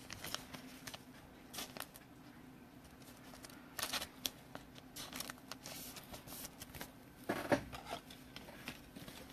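Trading cards being handled: scattered soft slides, taps and rustles of cards, over a faint steady hum.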